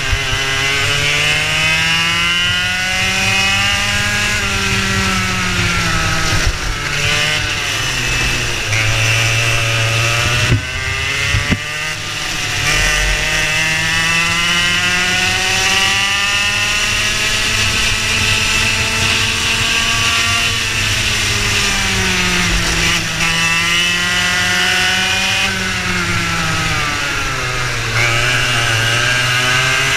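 Racing kart's engine heard onboard at racing speed, its buzzing pitch climbing on the straights and dropping back about four times as the kart slows for corners.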